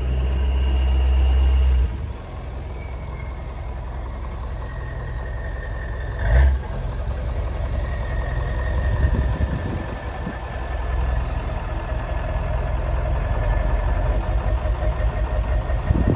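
Ford pickup's 7.3 Power Stroke turbo-diesel V8 running at low speed through twin exhaust stacks as the truck backs up. It is loudest in the first two seconds, then settles, with a high steady whistle over it. A single low thump comes about six seconds in.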